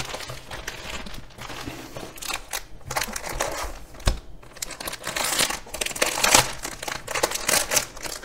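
Clear plastic wrap crinkling and rustling as hands pull it off a zippered fabric carry case. The crinkling is irregular and grows louder and busier about five seconds in.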